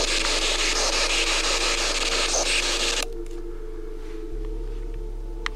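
Spirit box radio sweeping through stations: a steady rush of static with a fast, even chop, switched off suddenly about three seconds in, leaving only a faint hum.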